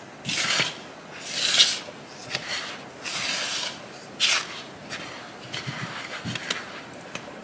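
Silicone spatula stirring dry glutinous rice flour and sugar in a mixing bowl: a run of short, irregular scraping strokes through the powder and against the bowl.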